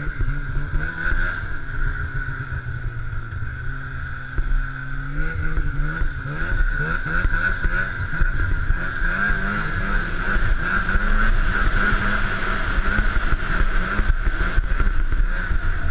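Polaris 600 Indy snowmobile's two-stroke twin engine running under way. Its note holds steady for the first few seconds, then rises about five seconds in and keeps rising and falling with the throttle. A steady high whine runs under it.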